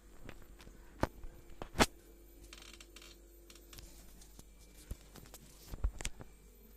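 Handling noises: a few sharp knocks and clicks, the loudest a little under two seconds in, with a short scraping rustle around the three-second mark.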